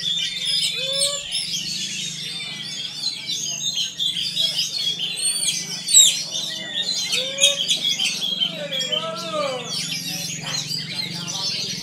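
Many caged songbirds singing at once, a dense overlapping chorus of high chirps and trills, with an oriental magpie-robin (kacer) among them. Several lower swooping calls stand out about three-quarters of the way through, over a steady low hum.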